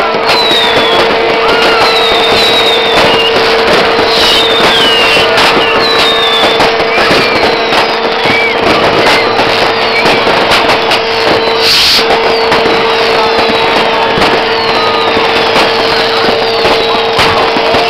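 Dense fireworks and firecrackers banging and crackling without pause, with the falling whistles of whistling rockets every second or so. A steady held tone runs underneath and breaks off briefly about two-thirds through.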